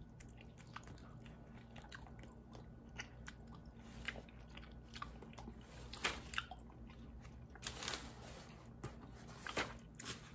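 Chewing on dim sum chicken feet: faint, scattered wet mouth clicks and smacks as teeth and tongue work the meat off the small bones, with a few sharper clicks standing out near the middle and end.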